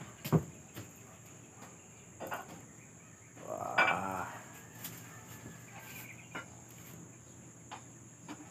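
Scattered light clinks of metal pots and dishes being handled on a kitchen counter, with a short animal call about four seconds in.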